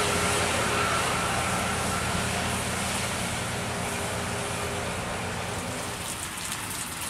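Intercity coach driving away on a wet highway: tyre hiss and engine noise fading steadily.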